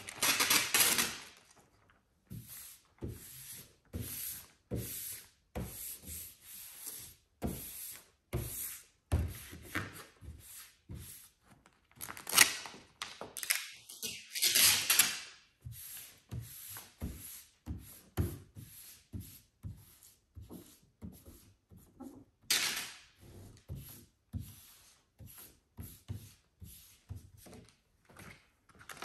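A large vinyl decal sheet being handled and smoothed by hand on a wet car hood: repeated short rubbing and rustling strokes with soft knocks, and a few louder swishes as the sheet is lifted and laid back down, about twelve, fourteen and twenty-two seconds in.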